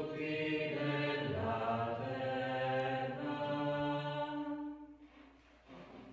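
Liturgical singing of the responsorial psalm at Mass: a slow chanted refrain with long held notes, which dies away about five seconds in.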